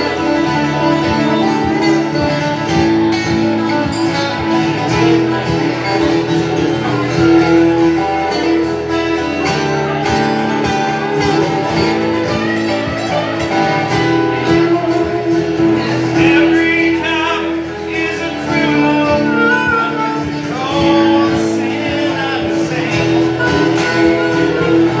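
Live acoustic guitar strumming with a harmonica playing held, wavering notes over it.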